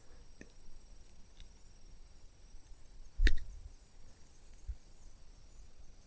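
Quiet background with a faint steady high-pitched hum, a few light clicks, and one sharp knock with a dull thud about three seconds in.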